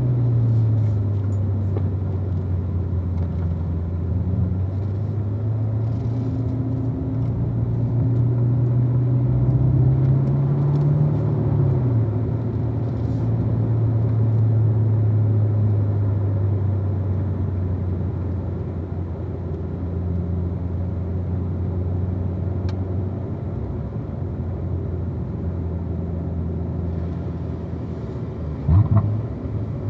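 2016 Corvette Z06's supercharged 6.2-litre V8 running at low revs under light throttle, its pitch slowly rising and falling. A quick, sharp rev blip comes near the end.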